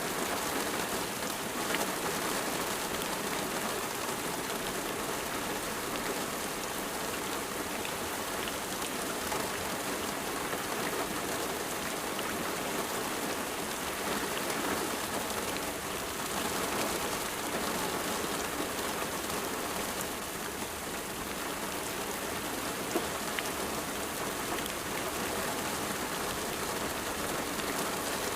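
Steady rain falling on a surface: an even hiss with scattered drop taps.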